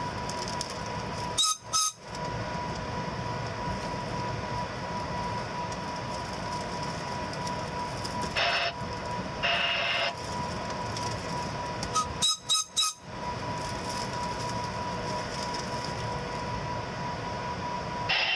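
Amtrak California Zephyr passenger train rolling slowly in reverse, a steady noisy rumble and hiss. Short sharp bursts break in near the start and again about two-thirds through, and two brief louder sounds come about halfway.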